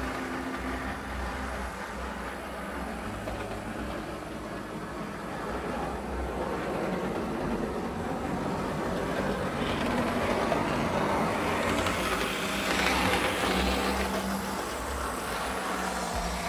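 Lima HO-scale model locomotive running along the track, its ringfield motor and noisy gears giving a steady mechanical running sound that grows louder in the second half as it comes close. The gear noise is typical of Lima models rather than a fault.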